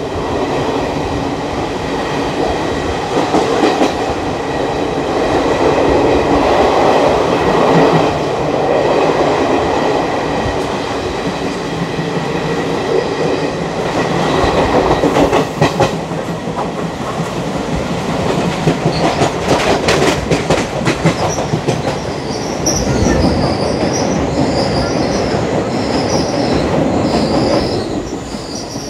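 ICF passenger coach wheels running on the track: a steady rumble with clatter over rail joints, a burst of it about two-thirds of the way through. In the last third come short high-pitched pulses of wheel squeal.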